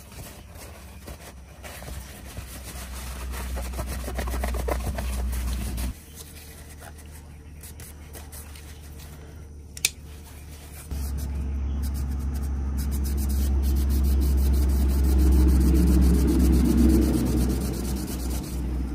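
Small electric motor of a workshop power tool running with a steady hum. It shuts off about six seconds in, a single sharp click follows a few seconds later, and the motor starts again about five seconds after stopping and runs on louder.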